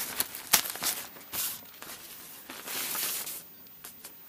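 Children's tent's fabric door flap rustling and crinkling as a hand handles it, in several short rustles and a longer one near the three-second mark.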